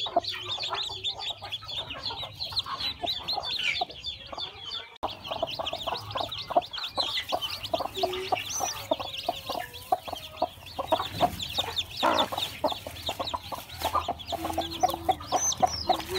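Newly hatched chicks peeping rapidly and continuously, many high peeps a second, with a mother hen clucking low among them.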